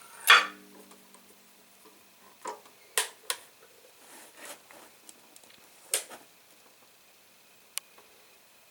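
Scattered metallic clicks and knocks from hand adjustments on a mini lathe as the tailstock and live center are snugged against an aluminum tube. The first knock, just after the start, leaves a brief low ringing; the lathe motor is not running.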